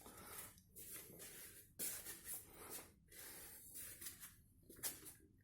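Near silence in a quiet room, with faint short swishing noises about every second.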